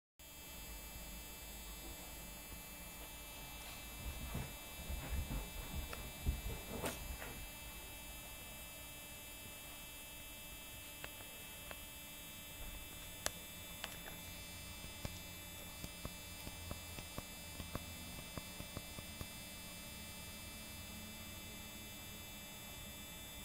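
Steady electrical hum and hiss, with a cluster of soft low thumps and rustling about four to seven seconds in and a few light clicks scattered later.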